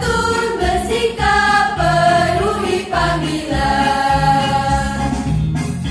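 Choir singing the closing bars of a campus march over an instrumental backing with a steady beat, ending on a long held note.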